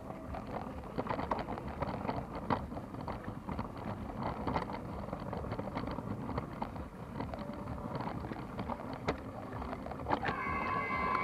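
Toy train rolling along its floor track with the camera riding on it: a steady rattling rumble with frequent sharp clicks. About ten seconds in, a few steady high tones join.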